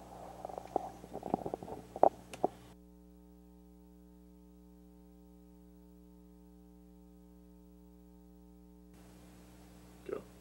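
A few sharp knocks and some rustling, then a steady low electrical hum for about six seconds, and one short faint sound near the end.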